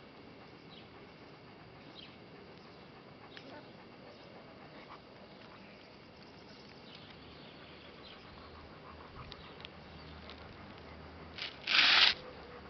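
Faint scattered clicks and rustles from Doberman puppies moving about and nursing under their mother. Near the end there is one short, loud rush of noise.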